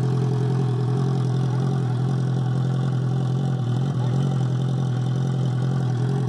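Honda CB650 inline-four motorcycle engine idling steadily with its catalytic converter cut out, so it runs through a hollow, open exhaust pipe.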